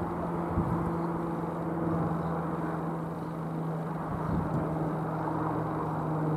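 Robin R3000/140 light aircraft's single piston engine and propeller droning steadily as it flies overhead, one constant low tone. Two short low thumps come about half a second in and just past four seconds.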